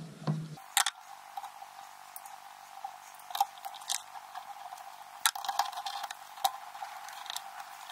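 Scattered small metallic clicks and scrapes as a nut driver loosens the terminal nuts on an ignition coil and the wire connectors are worked off the terminals.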